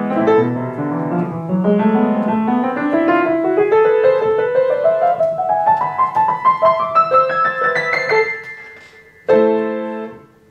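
Piano playing: chords, then a long run of single notes climbing steadily in pitch for several seconds and fading out, then one final chord about nine seconds in that rings and dies away.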